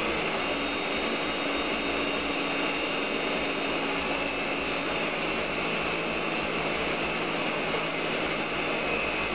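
Ninja countertop blender running steadily, blending a thick load of frozen fruit into a smoothie: a constant whir with a steady motor whine.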